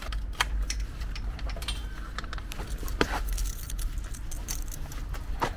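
A bunch of keys on a key ring jangling and clinking as they are handled, in a run of small sharp clicks, the loudest about three seconds in and again near the end.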